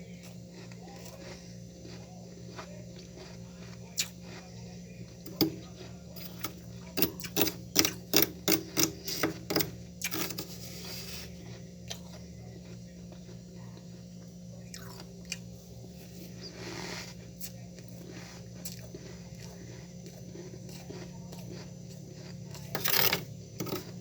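Frost in a freezer compartment being scraped and crunched, with a rapid run of about a dozen sharp, crisp strikes a third of the way in and a few short scraping rasps, over a steady low hum.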